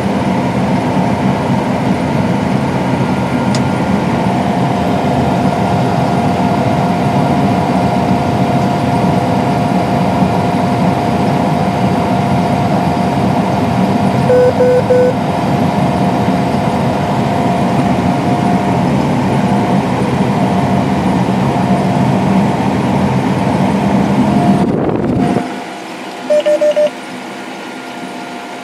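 Combine harvester machinery running at a steady drone with a held whine; three short electronic beeps sound about halfway. Near the end the drone cuts off abruptly to a much quieter hum, with another brief pair of beeps.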